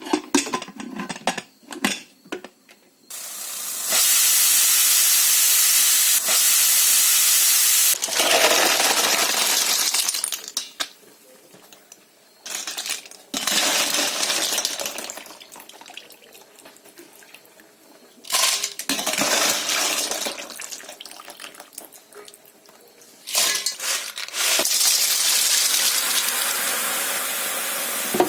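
Kitchen cooking sounds: repeated stretches of steady hissing, each a few seconds long, starting and stopping abruptly, with light clinks of pots and utensils in the quieter gaps.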